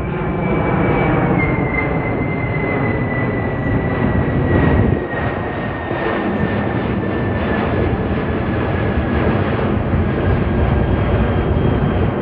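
Jet aircraft engines running loud and steady, with a high whine that slowly falls in pitch.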